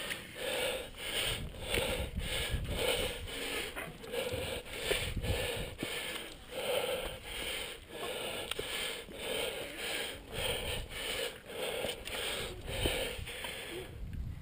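A climber's heavy, hard breathing close to a head-mounted microphone, panting in an even rhythm of about two breaths a second from the effort of hauling up a steep cable route.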